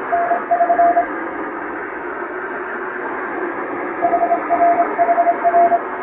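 Japanese wabun Morse code: a single steady beeping tone keyed in dots and dashes over constant shortwave-style static hiss, like a radiotelegram heard on a receiver. The keying stops after about a second, leaving only the hiss for about three seconds, then resumes.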